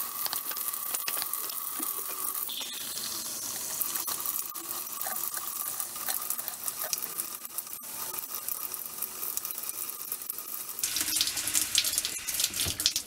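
Faucet running a steady stream of water into a ceramic mug, with splashing. The sound grows louder and busier about eleven seconds in as the mug is moved under the stream.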